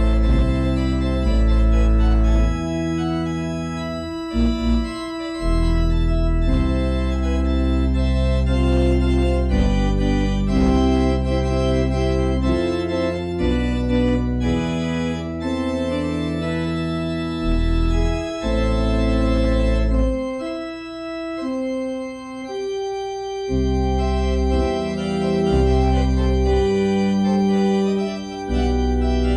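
Church organ playing a postlude: sustained chords that change every second or two over deep bass pedal notes.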